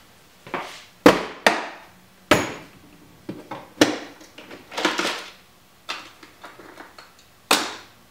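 A series of separate knocks and clunks as things are set down on a wooden workbench: a clear plastic storage box, a cordless drill and a small die-cast toy car. The loudest knock comes about a second in.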